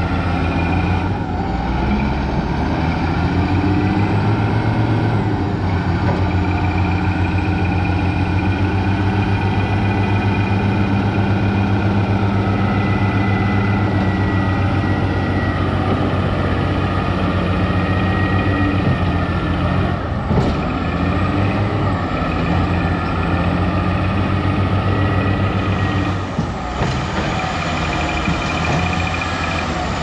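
Caterpillar 966F wheel loader's diesel engine running steadily as the loader works through mud, with a thin whine above the engine note. Two short sharp knocks, about twenty and twenty-six seconds in.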